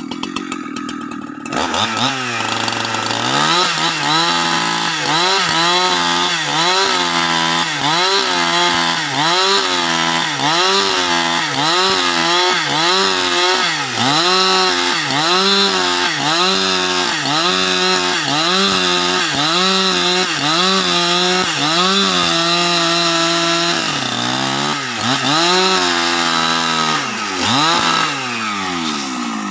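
Husqvarna 365 two-stroke chainsaw revving up from idle about a second and a half in and cutting lengthwise through a log to make planks. Its engine pitch dips and recovers about once a second under load, then it drops back toward idle near the end.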